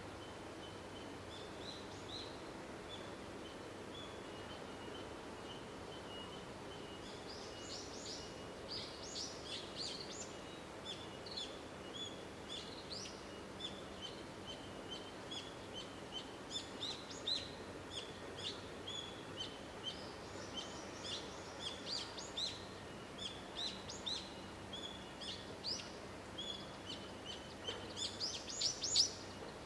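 Small birds chirping in quick, short calls, sparse at first and growing busier, densest near the end, over a faint steady outdoor background with a thin high tone underneath.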